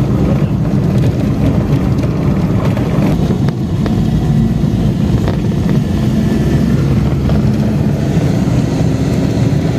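A road vehicle travelling at a steady pace: a constant low rumble of engine and road noise with a faint steady hum.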